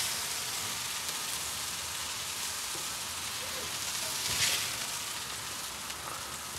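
Thin 80/20 beef patties topped with cheese sizzling steadily in their own rendered fat on a gas-fired flat-top griddle. A metal spatula scrapes under a patty at the start and again about four and a half seconds in, as the burgers are lifted off.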